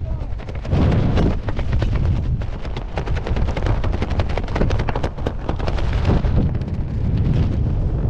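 Wind rushing over the microphone under an open parachute, with fabric flapping and crackling rapidly in the airflow from about a second in until near the end.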